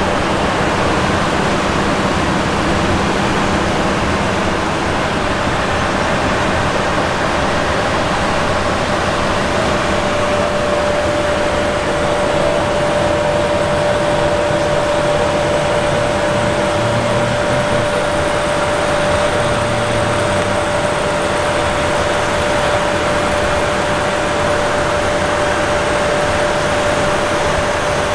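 Steady rush of air and machinery hum with a constant whine over it: the ventilation and systems noise of a parked, powered-up Boeing 767-300 freighter's flight deck.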